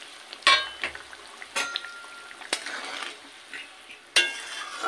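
A spatula stirring a simmering tomato-masala gravy with fried colocasia leaf rolls in an aluminium kadai. It knocks against the pan about four times, each knock ringing briefly, over a faint bubbling sizzle.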